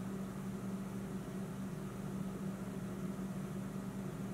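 A steady low background hum with a strong constant tone, unchanging throughout; the soldering itself makes no sound that stands out above it.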